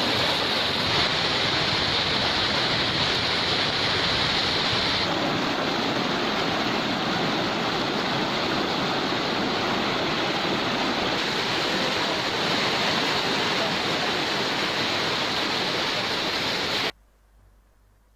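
Fast floodwater rushing and churning across a road, a loud steady rush. The sound cuts off abruptly about a second before the end, leaving near silence.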